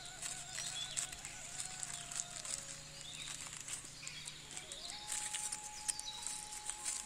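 Soft background music carrying a slow melody of long held notes, with birds chirping and the light crinkle and ticks of paper wrappers being handled.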